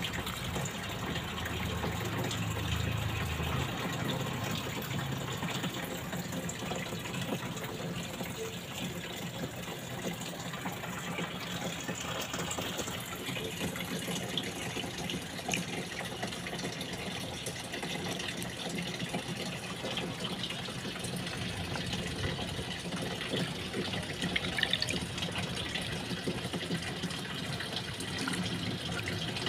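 Water running steadily in a fish tub, with a few small splashes.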